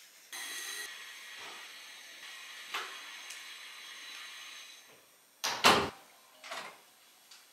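A steady hiss for the first four and a half seconds or so, then a closet door swinging shut with a loud thud, followed by a lighter knock about a second later.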